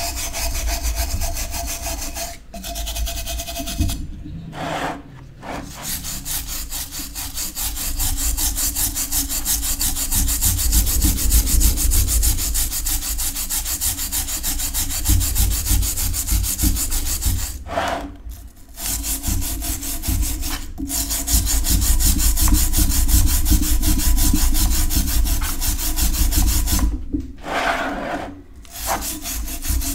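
A stiff wire brush scrubbing rust off a wet cast-iron sad iron in fast back-and-forth strokes. The scraping stops briefly a few times when the brush is moved to a new spot.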